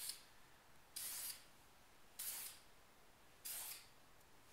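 Aerosol spray paint can fired through a clip-on trigger grip in four short hissing bursts, about one and a quarter seconds apart, each laying down a stripe of paint.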